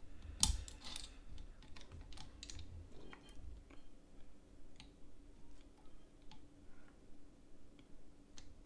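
Scattered light clicks and taps from handling a USB flash drive's circuit board as it is turned over, the sharpest about half a second in, over a faint steady hum.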